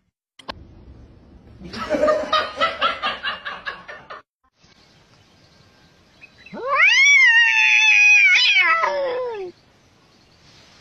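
A domestic cat's long, drawn-out yowl that rises sharply in pitch, holds for about three seconds, then falls away. Before it comes a quick run of short pitched pulses, about seven a second, lasting some two seconds.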